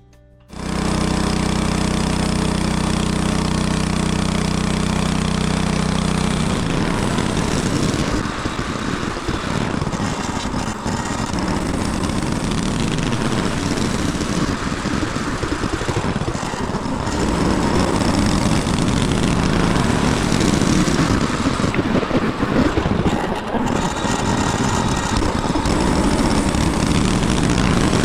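Frontier OS18 portable bandsaw mill's gas engine coming in abruptly and running steadily. From about six seconds in, the sound turns rougher and noisier as the band blade cuts through the white oak log.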